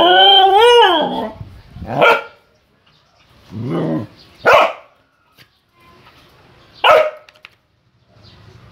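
A dog barking at intervals, five calls in all: the first long and wavering in pitch, the rest short sharp barks a second or two apart.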